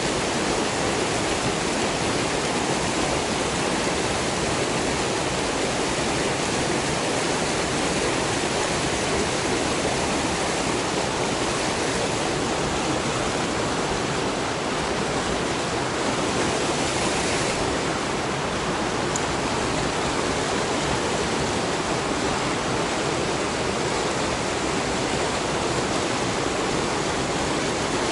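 Steady rushing of a small river's rapids pouring over boulders into a pool.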